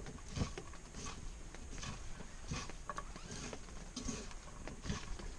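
Hands mixing diced raw fish fillet with chopped onion, salt and black pepper in a pan for khe: soft, irregular small clicks and rustles of the fish pieces being turned over.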